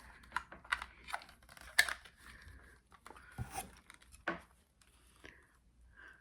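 Scattered clicks, rustles and crinkles of unpacking a new camera microphone and its plastic parts, with the sharpest click about two seconds in.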